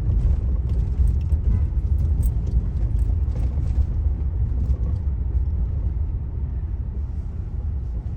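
Inside a moving car: steady low rumble of the engine and tyres on the road, with faint light clicks now and then.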